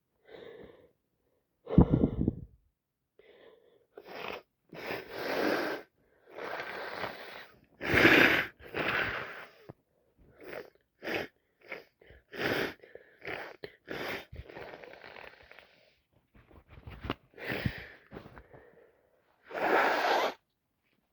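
A person with a head cold making congested nose and breath sounds: a run of short sniffles, breaths and sneezes. The loudest bursts come about two seconds in, around eight seconds, and near the end.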